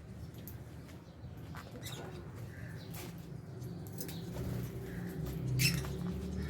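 Aviary lovebirds and budgies: scattered small clicks and scratches, the loudest near the end, with a few faint chirps over a low, steady rumble.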